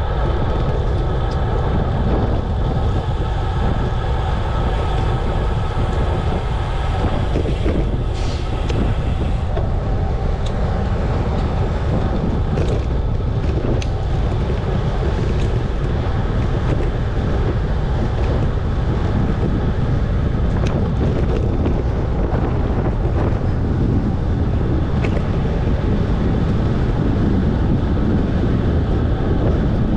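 Steady wind rush on the microphone of a bicycle-mounted camera riding at speed, a loud even rumble with no breaks.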